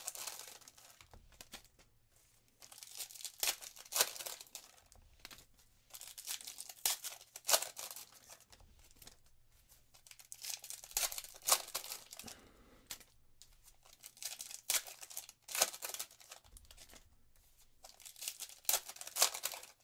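Foil trading-card packs of Panini Prizm basketball being torn open and crinkled by hand, one after another, in about six bursts a few seconds apart. A faint low electrical hum runs underneath.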